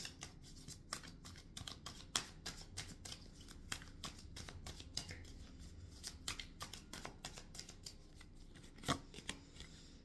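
A deck of tarot cards being shuffled by hand: a quick, uneven run of soft card clicks and slaps, with one louder snap near the end.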